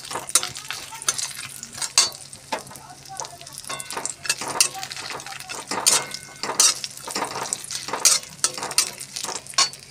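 Flat metal spatula scraping and clinking in a metal kadai, stirring cashews, raisins and a bay leaf frying in hot ghee, with a sizzle behind the irregular scrapes.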